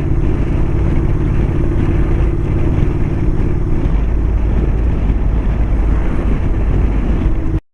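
Motorcycle running at a steady cruising speed with road and wind noise; a steady engine note fades about four seconds in. The sound cuts out completely for a moment near the end.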